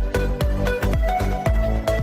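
Music with a steady, fast beat, about three to four strokes a second, over deep bass and a held melody.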